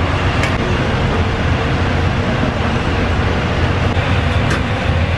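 Steady, loud rumble with a hiss over it at a charcoal grill where skewered whole sea bream are roasting, with two faint ticks.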